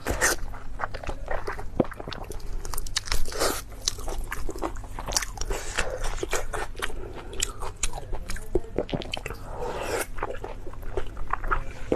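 A person eating close to the microphone: irregular crunching and chewing with many sharp crackles and wet smacks.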